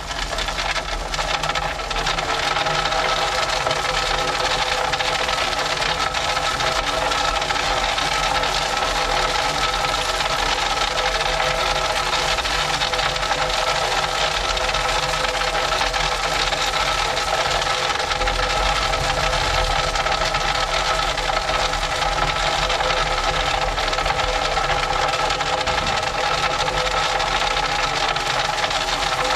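A track maintenance machine running steadily under power, with rattling and a steady whine.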